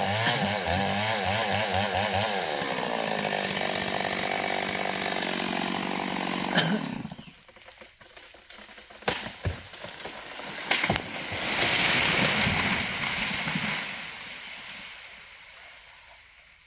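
Mini chainsaw revving up and down, then running steady, and shut off abruptly about seven seconds in. A few sharp cracks and a louder rushing noise follow.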